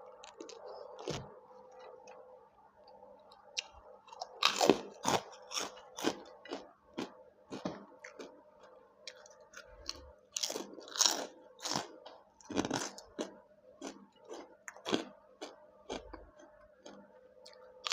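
Close-up chewing and crunching while eating pork noodle soup, in irregular bites that get louder about four seconds in, over a faint steady hum.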